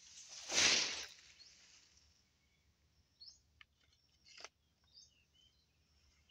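An armful of freshly cut grass fodder tossed down onto a pile: one brief, loud rustling swish about half a second in. Afterwards a few faint bird chirps and small clicks.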